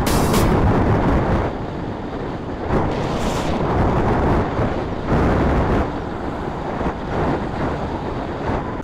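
Wind buffeting the microphone: a loud, rough rumble that rises and falls a little.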